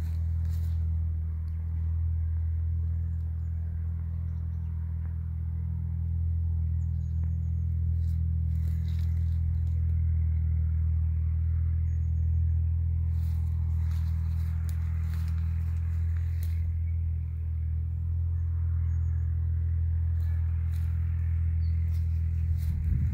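A steady low rumble with a machine-like hum, unchanging throughout, with faint short bird chirps a few times and occasional light clicks.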